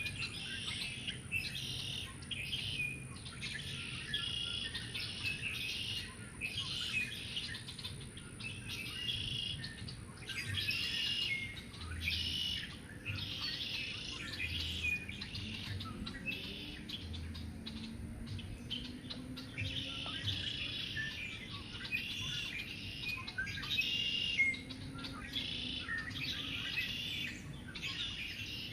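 Several songbirds singing and chirping at once in a busy, continuous chorus of high, repeated phrases.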